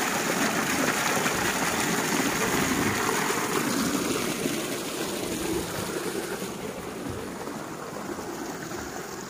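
Water gushing from a metal pipe outlet into a concrete irrigation channel, a steady rushing splash that fades gradually over the last few seconds.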